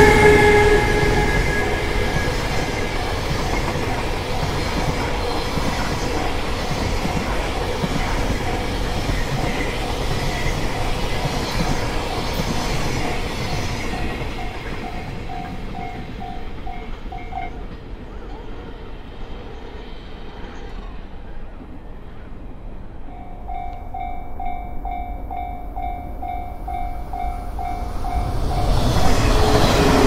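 A freight train hauled by an electric locomotive rolls through a level crossing. Its rumble and clatter are loudest at the start and fade as it moves away. The crossing's warning bell rings in a fast, even pulse, stops about 17 s in and starts again about 23 s in. A second train's noise swells near the end.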